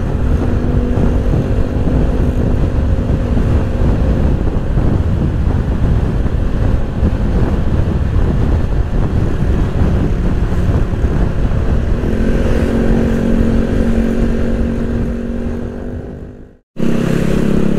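Wind rushing over the microphone of a moving motorcycle, with the steady drone of its single-cylinder Honda ADV150 scooter engine underneath. The engine note stands out more about twelve seconds in. Near the end the sound fades out for a moment and comes straight back.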